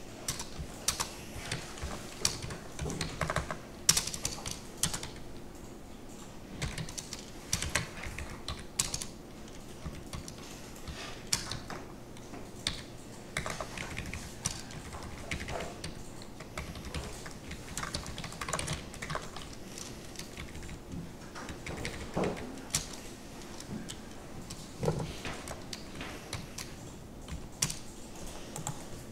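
Typing on a computer keyboard: irregular keystrokes in short clusters, with pauses between them.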